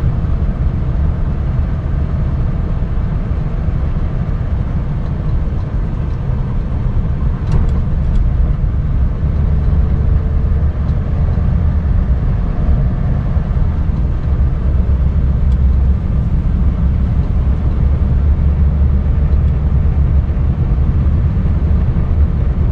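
Scania R580 truck's V8 diesel engine running with a steady low drone.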